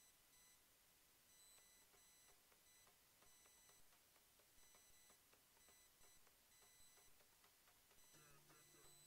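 Near silence, with faint, short high-pitched electronic beeps repeating at an even pace. Faint background music comes back in near the end.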